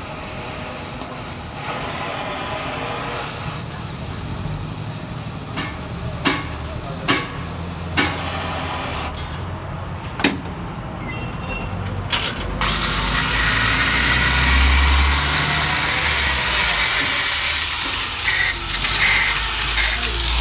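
Gas welding torch hissing steadily, with five or six sharp metallic knocks in the middle. About twelve seconds in, a louder, rough noise over a low engine rumble takes over.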